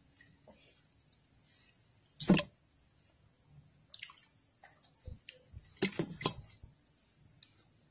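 A bamboo lift net is hauled up out of shallow creek water: one loud knock about two seconds in, then a quick run of knocks, clicks and splashes around six seconds as the net and its frame come clear of the water, over a faint steady high hiss.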